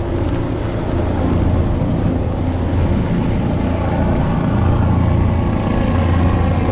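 A steady, loud engine drone with a constant low hum.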